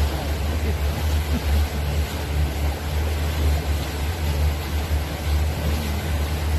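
Boat engine running steadily, a low drone, with the rush of wind and water over it.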